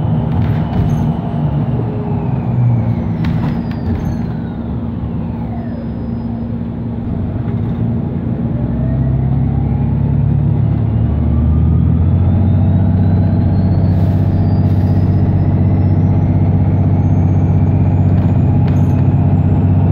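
New Flyer XDE60 diesel-electric hybrid articulated bus heard from inside. The electric drive's whine falls in pitch as the bus slows, then rises steadily as it pulls away. The engine drone grows louder about halfway through.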